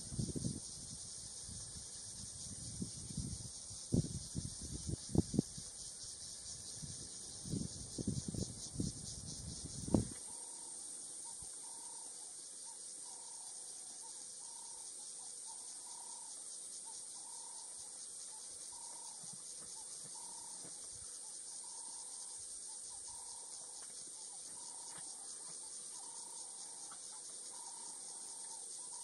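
Bush insects drone steadily in a high-pitched hiss. For the first ten seconds low knocks and thumps come and go, then cut off suddenly. After that a faint call repeats about once a second.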